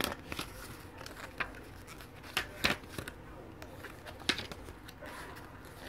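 Pages of a paper CD booklet being turned by hand: several short paper flicks and rustles at irregular intervals.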